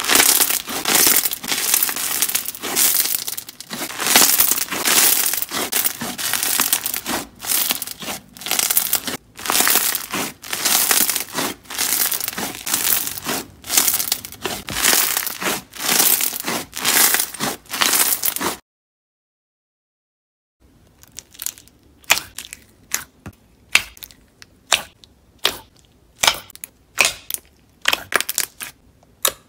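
Hands squeezing and kneading pink slime packed with small plastic beads, giving a dense run of crisp crackling and popping squishes. About 18 seconds in the sound cuts out for two seconds, then a white-and-blue slime is poked and pressed, with sparser, sharper pops.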